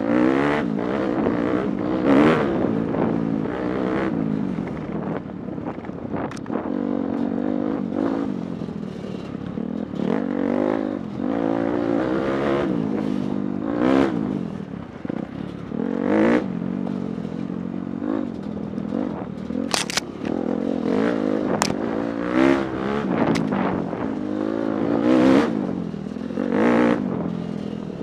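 Dirt bike engine close to the microphone, revving up and easing off again and again as it rides a rough trail, its pitch rising and falling with each swell. Knocks and clatter from the bumpy ground and wind flapping on the microphone run through it.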